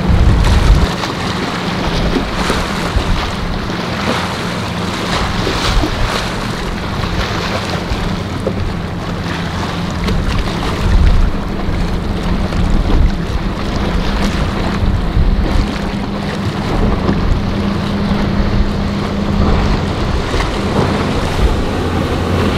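Outboard-powered center-console boats running through rough inlet water: a steady engine drone under breaking waves and heavy wind buffeting on the microphone.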